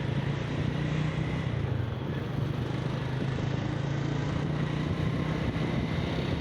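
Steady low engine drone under an even rushing noise.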